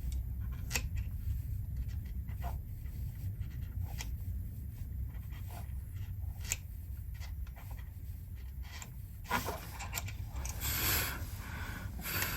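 Lighter flame heating a solder-seal wire connector: a steady low rumble with light clicks and handling noises, and a brief hiss about nine seconds in.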